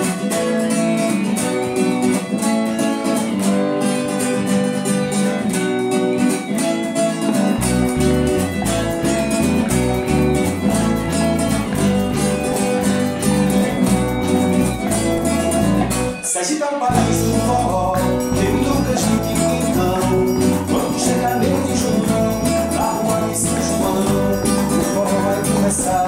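A forró band playing a song: acoustic and electric guitar open it, and bass and percussion (triangle, drums) join about seven seconds in. After a short break around the middle, the song carries on, with a man singing toward the end.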